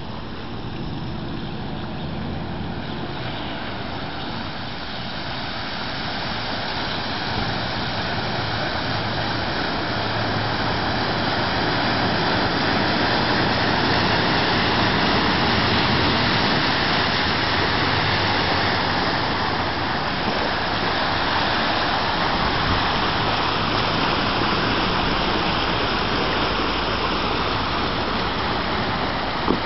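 Vehicle driving through deep floodwater on a street: a steady rushing and splashing of water from the tyres with a low engine hum beneath. It grows louder toward the middle and eases off again.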